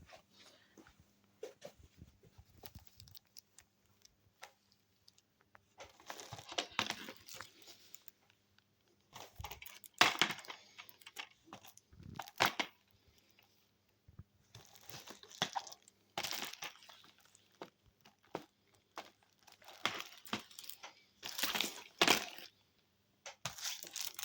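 Packaging being handled: irregular bursts of rustling, crinkling and tearing a few seconds apart, with quiet gaps between them.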